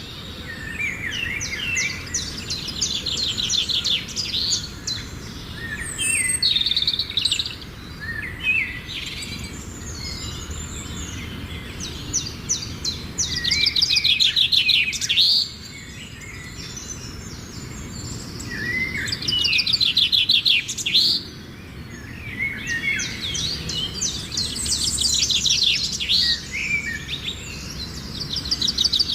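Songbirds singing in repeated bouts of rapid, high trills and chirps, each a few seconds long with short lulls between, over a steady low background noise.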